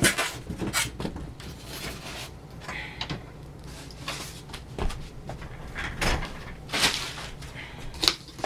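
Unpacking noise: a cardboard box and its packing being handled, with scattered knocks, light thumps and rustles.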